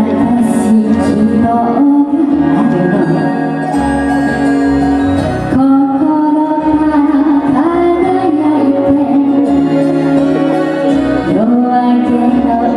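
A woman singing a Japanese popular song (kayōkyoku) into a handheld microphone over instrumental accompaniment, holding long sustained notes.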